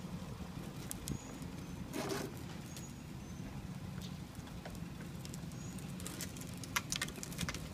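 Plastic big-wheel tricycle rolling on a concrete sidewalk, its hard plastic wheels giving a steady, choppy low rumble, with a short scrape about two seconds in and a few light clicks near the end.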